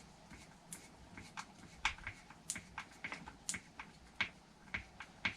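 Light, irregular metal clicks and taps from a hand tool snugging down small engine-mount bolts on an RC truck chassis.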